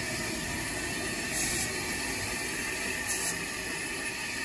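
Steam locomotive standing at a station, giving off a steady hiss of escaping steam, with two brief sharper hisses about a second and a half apart.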